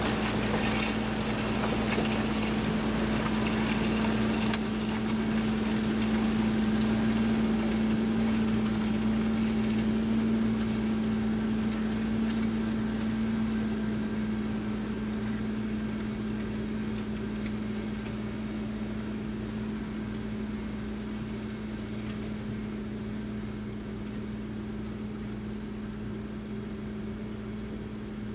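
Fendt 724 tractor's six-cylinder diesel engine running at a steady, even pitch under load, pulling a six-furrow plough through the soil. The sound eases slightly over the second half.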